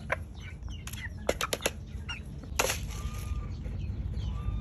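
Chickens at their food: short clucks and small calls over a quick run of sharp taps about a second in, and a brief rustling rush a little past halfway, over a steady low hum.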